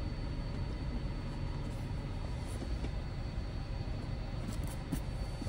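A coin scraping the scratch-off coating of a lottery ticket in a few short strokes, over a steady low rumble.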